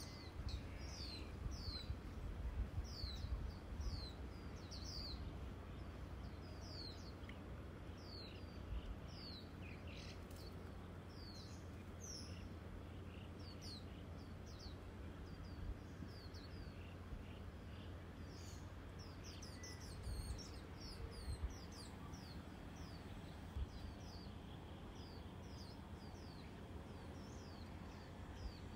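Small bird chirping over and over: short high notes, each falling in pitch, about two a second, over a low rumble of wind on the microphone.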